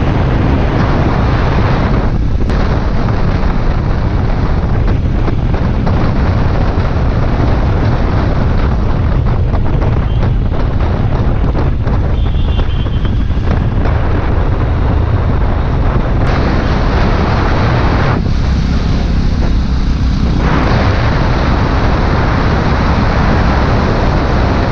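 Wind buffeting the microphone of a moving motorcycle: a loud, steady rumble.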